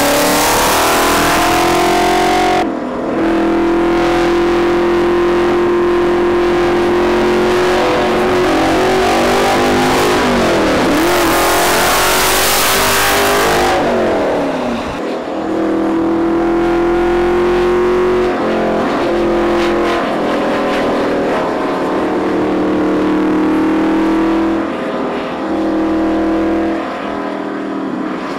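Mercedes-Benz W 196 racing car's straight-eight engine running hard, rising in pitch and dropping briefly at each gear shift. About halfway through it sweeps past with a swoop in pitch and a surge of rushing noise, then runs on at steady high revs with more shifts near the end.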